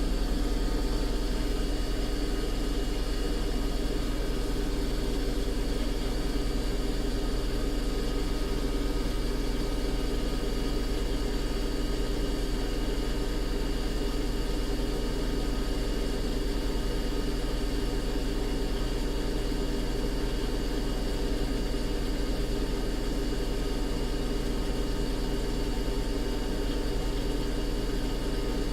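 Bosch washing machine on its spin cycle, the drum spinning at a steady speed. It gives an even, unchanging hum with a strong deep drone and faint steady high whines on top.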